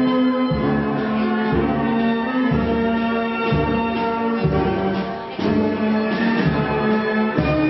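Brass band with trombones playing a slow procession march, long held notes with the low brass line changing about once a second and a brief dip just past five seconds in.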